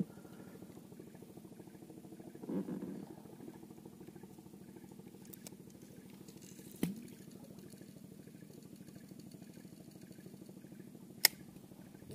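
A small boat engine running steadily at idle, with a few sharp clicks over it, the loudest near the end.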